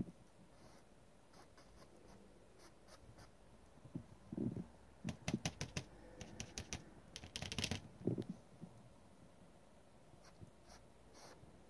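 Faint strokes of a paintbrush on a stretched oil-painting canvas. A cluster of quick clicks and knocks runs through the middle for about four seconds and is the loudest part.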